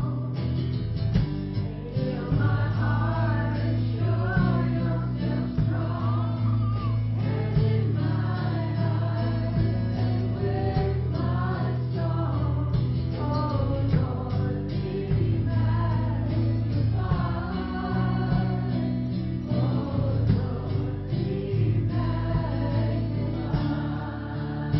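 Christian song: voices singing a melody over sustained low instrumental notes.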